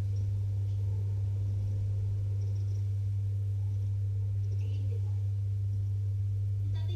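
A steady low hum, with faint voices in the background and a voice starting just at the end.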